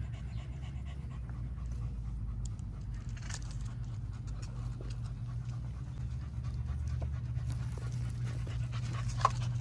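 A dog panting steadily, with one brief sharp click near the end.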